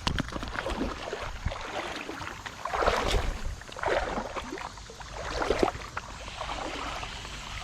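Water sloshing and splashing around legs wading through a shallow creek, in a few louder surges about a second apart over a steady background of water noise.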